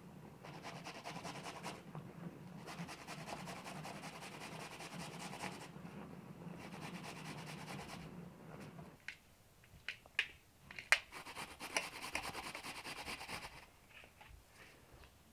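Raw pumpkin being rasped on a metal box grater in repeated strokes, together with the whir of a hand-pulled food chopper. After about nine seconds the steady rasping gives way to a run of sharp clicks and scrapes, then grows quieter.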